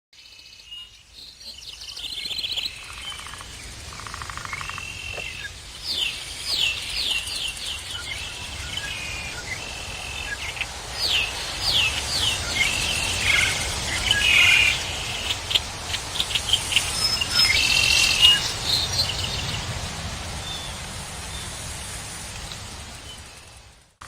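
Birds chirping and singing in short calls and trills over a steady background hush; the birdsong fades in at the start and fades out near the end.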